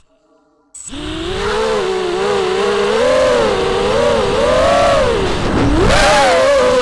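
Brushless motors and propellers of a ZMR250 FPV racing quadcopter on 4S, heard from its onboard camera: a whine that starts abruptly about a second in and wavers up and down in pitch with the throttle, dropping sharply near the end before climbing again.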